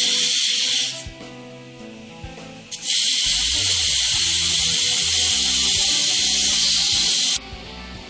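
Compressed air hissing through an air chuck on an ATV tyre's valve stem as the tyre is inflated to seat its beads, in two bursts: about a second at the start, then a longer one of about four and a half seconds from about three seconds in.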